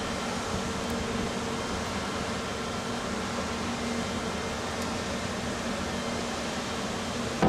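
Steady machinery hum: a constant low drone over an even wash of noise, with no change throughout.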